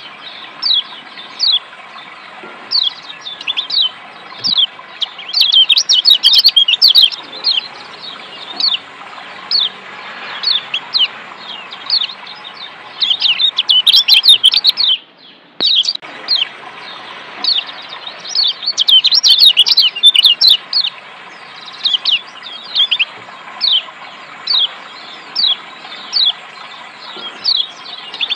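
Lombok yellow white-eye (kecial kuning) giving sharp, falling 'ciak' chirps about once a second, with three spells of fast, dense chirping. A steady rushing of water sits beneath, and cuts out for about a second midway.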